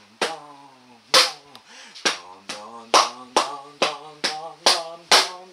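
Taiko drum practice with plastic bottles used as sticks: about a dozen sharp strikes, roughly two a second, in a drumming rhythm, with a man's voice chanting along in drawn-out tones between the strikes.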